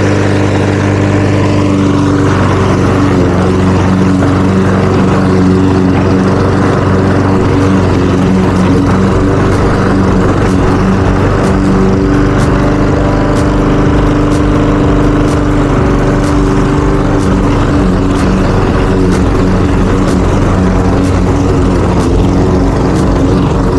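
Lawn mower engine running steadily while mowing, its pitch wavering slightly.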